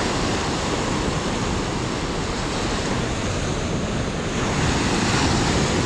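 Surf washing in over a sandy beach, a steady rush of breaking waves that swells a little louder a few seconds in.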